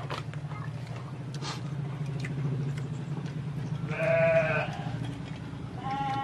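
Bleating, like a sheep or goat: two short quavering calls, one about four seconds in (the loudest) and one near the end, over a steady low hum, with a few light clicks.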